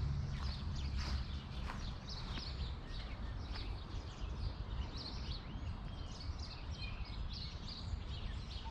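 Many small birds chirping and twittering in trees, short high calls coming several times a second, over a steady low rumble.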